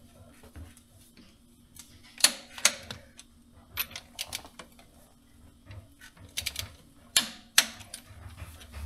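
Torque wrench clicking as connecting-rod bolts are tightened to the 80 Nm stage. There are a few sharp clicks, some in pairs about half a second apart, with smaller ticks between them.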